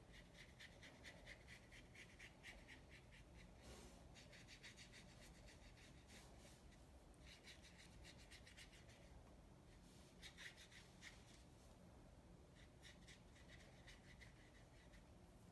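Faint rubbing of a watercolor brush stroking quickly back and forth over wet watercolor paper, in several short spells of strokes.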